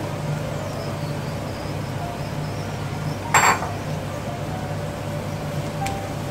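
Mushroom pieces tipped into a wok and turned with a wooden spatula over a steady low hum, with one sharp knock on the pan about three and a half seconds in.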